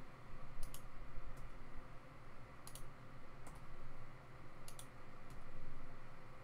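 Scattered clicks of a computer mouse, a handful of them, several in quick pairs like double-clicks.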